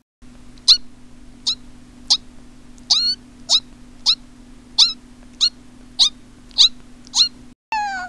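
A person's voice imitating a mouse: a string of about eleven short, high squeaks, each quickly rising in pitch, roughly one every 0.6 seconds, over a steady low hum. Just before the end a meow-like falling call begins, an imitated cat.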